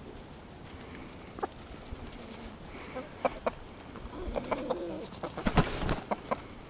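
Domestic hens clucking in short calls that come more and more often in the second half, with a burst of wing flapping about five and a half seconds in.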